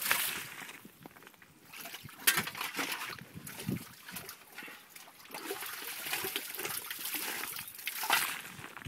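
Water splashing and trickling at the bottom of a freshly dug spring well, with irregular scrapes and knocks.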